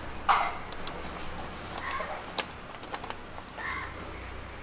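A bird calls a few times in the background, loudest just after the start. A few faint clicks come as the oil filler cap and dipstick are unscrewed from the motorcycle's engine case.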